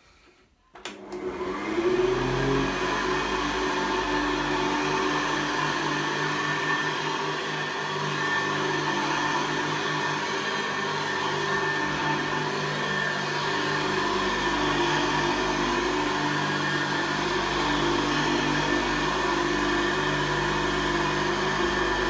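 Vintage Hoover Convertible upright vacuum cleaner switched on about a second in, its motor winding up in pitch to full speed, then running steadily as it is pushed over carpet.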